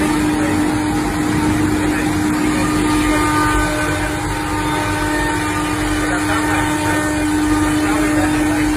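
Selexx Pal CNC router running: a steady spindle whine over a constant dense mechanical noise.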